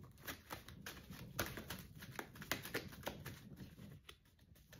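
A deck of tarot cards being shuffled by hand, a run of quick, irregular snaps and flicks as the cards slide and tap against each other.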